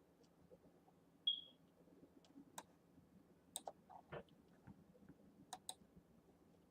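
Quiet room with a few scattered, irregular clicks, like a computer mouse being clicked while navigating a map, and a brief high-pitched tone about a second in that is the loudest sound.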